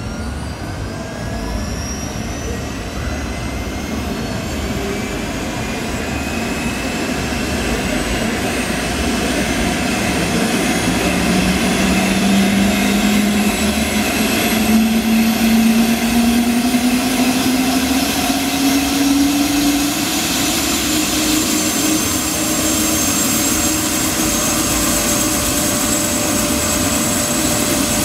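Helicopter start-up on an Airbus H125 (AS350 B3e Esquilo): the Arriel 2D turboshaft spools up with a whine that climbs steadily in pitch while the main rotor picks up speed. The pitch levels off in the last several seconds as the engine and rotor settle at speed.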